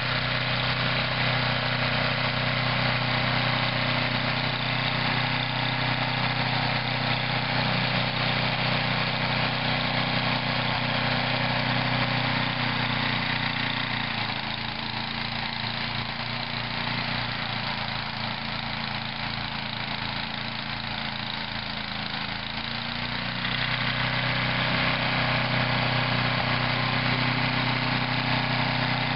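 Toro snow thrower's engine running steadily, dropping a little in loudness for several seconds in the middle before coming back up.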